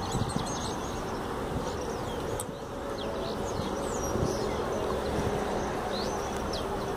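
Outdoor pond-side ambience: a steady low rumble and buzzing hum, with short, faint high bird chirps scattered over it.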